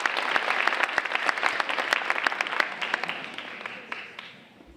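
Audience applauding, a dense patter of many people clapping that thins out and dies away over the last second or two.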